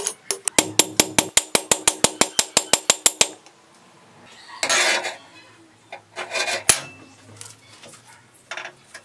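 Hand hammer striking red-hot steel on a steel anvil: a fast, even run of ringing blows for about three seconds as the scrap blade is forged. A few short, noisy handling sounds follow.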